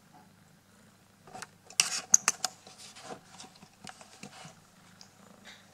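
Clear plastic clicking and crinkling as a cat paws at it: a quick burst of sharp clicks about two seconds in, thinning to scattered taps by about four and a half seconds.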